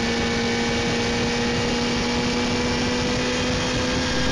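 Car engine drone and road noise heard inside the moving car's cabin, holding a steady pitch as it cruises.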